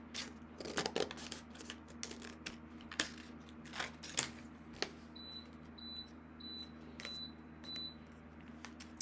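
Scissors snipping through a laminated card-stock sheet, with sharp cuts and crinkles of the plastic pouch. About five seconds in, an electronic beep sounds five times, about one and a half beeps a second.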